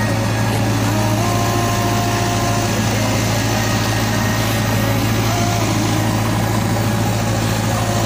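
A steady, low, engine-like motor hum, with a fainter whine above it that shifts in pitch now and then.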